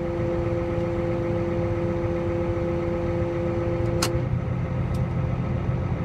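Tractor engine running steadily under load, heard from inside the cab as the grain cart's auger unloads shelled corn into a semi trailer. A steady two-note tone sounds until about four seconds in and stops with a click.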